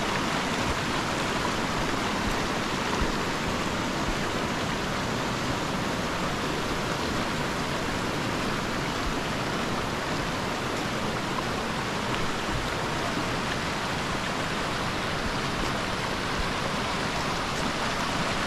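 Shallow mountain stream running over rocks and stones, a steady, even rush of water.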